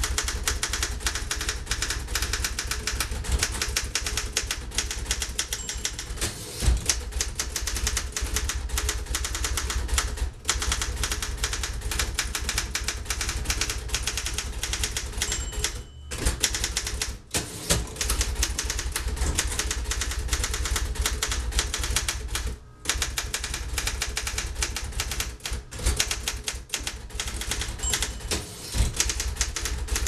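Fast, continuous typing on a 1958 Royal FP manual standard typewriter: a rapid, steady stream of key strokes. The typing breaks off for a few short pauses around the middle and about two-thirds of the way through.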